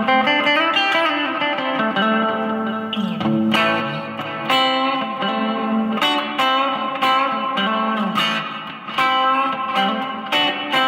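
Custom Telecaster-style electric guitar with Hot Rails humbucking pickups, played through an amp with a slightly overdriven, raunchy tone. Chords and notes are struck repeatedly and left to ring, with a few bent notes in the first few seconds.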